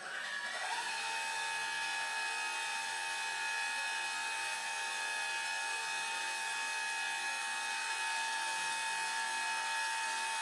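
A small electric motor spins up with a rising whine, then runs at a steady high pitch without a break.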